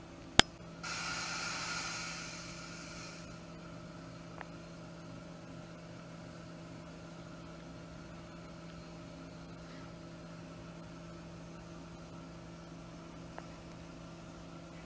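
Steady low electrical hum, with a single sharp click about half a second in and a short burst of hiss lasting about two seconds just after it.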